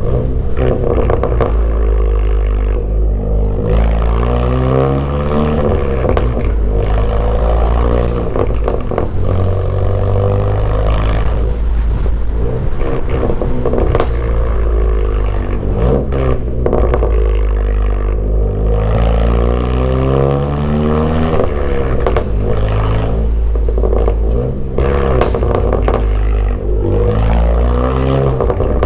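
Straight-piped turbocharged Honda Accord engine, muffler and resonator deleted, revving hard several times. Its pitch climbs steeply, then drops back each time, as with full-throttle pulls through the gears. The exhaust note is loud and raspy, with a few sharp clicks.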